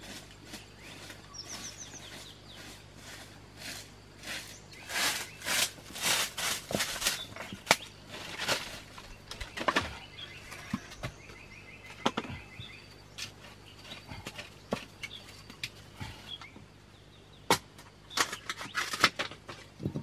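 Irregular rustling, scraping and light knocks as wooden logs are moved about on a dirt floor, busiest about a quarter of the way in and again near the end. Birds chirp faintly in the background.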